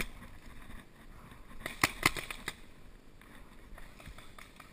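Paintball fire: a quick burst of sharp pops about two seconds in, the two loudest close together, with fainter scattered pops around them.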